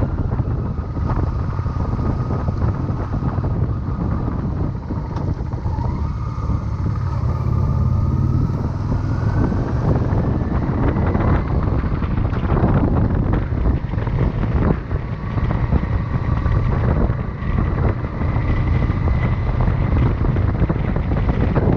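Motorcycle riding: the engine running under heavy wind noise buffeting a chest-mounted microphone, with a faint whine that rises in pitch around the middle.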